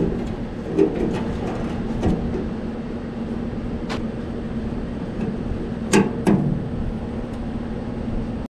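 Sharp metal clicks and taps of a hand tool on the fuel shut-off valve and sediment bowl fitting of a Ford 8N tractor, a handful of them, two close together about six seconds in, over a steady hum.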